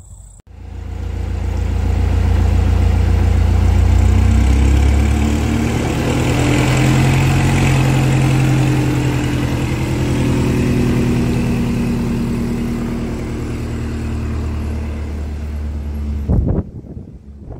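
Engine of a vehicle running loud and close. It swells in over the first couple of seconds, eases off slowly, then cuts off suddenly near the end.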